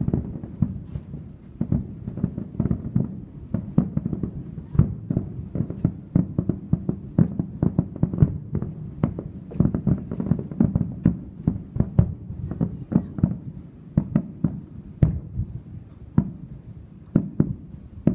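Aerial fireworks shells bursting in a rapid, unbroken run of booms and sharp pops, several a second.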